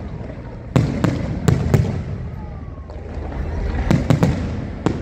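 Fireworks display: aerial shells bursting in sharp bangs, each followed by a low rumbling echo. The bangs come in two clusters, several about a second in and several more around four seconds in, with a steady low background rumble between.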